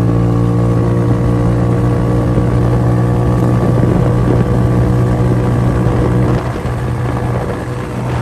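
TrailMaster XRS 150 buggy's GY6 150cc single-cylinder four-stroke engine running at a steady, unchanging pitch as the buggy drives along; it gets slightly quieter about six seconds in. It is running on the stock CDI with a new performance ignition coil and iridium spark plug.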